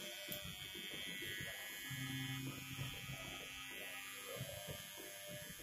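Electric hair trimmer running with a steady motor buzz while trimming hair around the ear. A lower hum joins for about a second near the middle.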